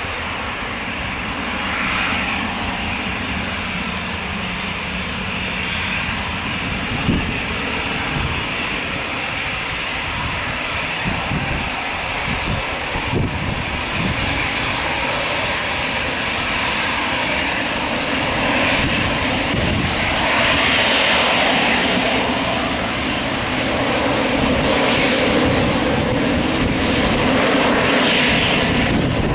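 Jet engines of an Airbus A319 airliner running, a steady rushing noise that slowly grows louder.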